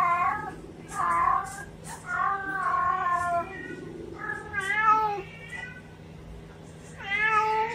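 A domestic cat meowing repeatedly: a string of drawn-out meows with short gaps, a pause of over a second, then one more meow near the end.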